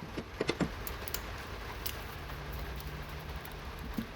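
A few light clicks and taps, mostly in the first second, as coolant hoses and their clamps are refitted onto an engine's water outlet, with a faint steady hum later on.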